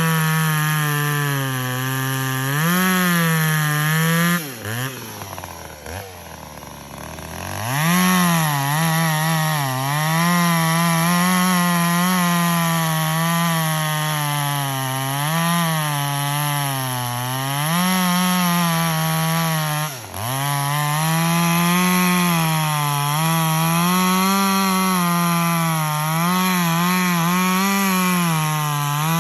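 Husqvarna two-stroke chainsaw running at full throttle and cutting wood, its pitch wavering under load. About four and a half seconds in it drops to idle for a few seconds, then revs back up to cut again, with a brief dip in revs about twenty seconds in.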